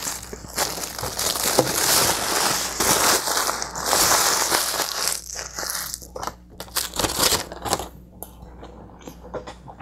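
A sheet of aluminium foil, a burrito wrapper, being crumpled into a ball by hand: a dense crinkling for about the first five seconds, then scattered sharp crackles thinning out as it is squeezed tight.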